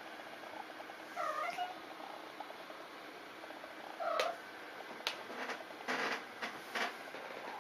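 Mother cat giving two short calls to her kittens, about a second in and again about four seconds in, calling them out to explore. A few short taps and rustles follow near the end.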